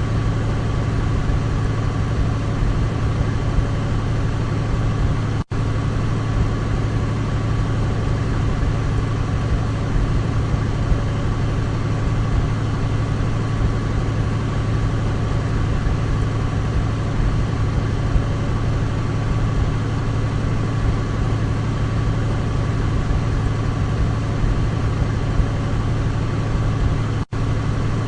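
Douglas DC-3's twin radial piston engines droning steadily at a constant pitch. The sound cuts out for an instant twice, about five seconds in and near the end.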